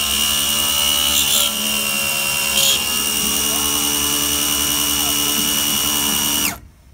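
Belt-driven spindle of a hobby CNC mill running with a steady high whine while an end mill cuts a trochoidal toolpath, the axis stepper motors adding faint rising and falling tones as the cutter sweeps. Three brief louder bursts of cutting come in the first three seconds, and everything stops abruptly about six and a half seconds in.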